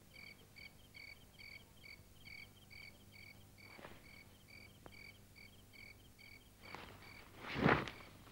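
Crickets chirping steadily and faintly, about three chirps a second. A louder, brief rushing sound comes near the end.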